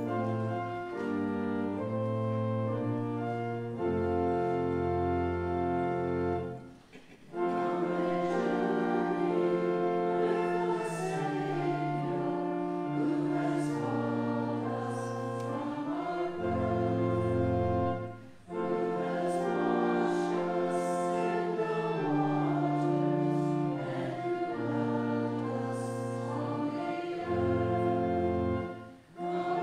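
Church organ playing the hymn's opening alone, then a congregation singing the hymn with the organ from about seven seconds in. The singing pauses briefly between lines.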